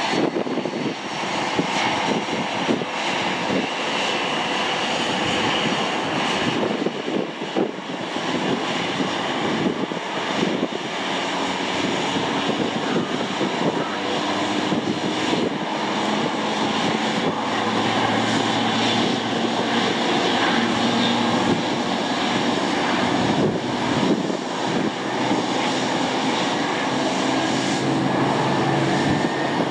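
Airliner engines running: a steady, loud engine noise with faint whining tones, one of them rising slowly near the end.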